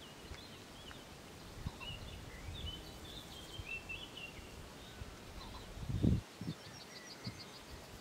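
Small songbirds chirping in the background over a steady outdoor hiss, with a short rapid trill near the end. A low rumble comes briefly about six seconds in.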